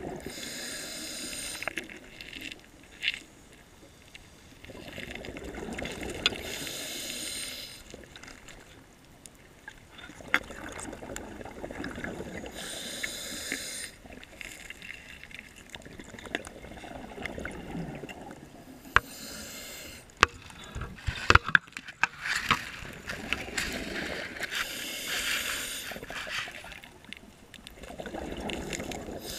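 Scuba regulator breathing underwater: slow inhalations alternating with bursts of exhaled bubbles, roughly every six seconds. A cluster of sharp clicks and knocks comes a little past the middle.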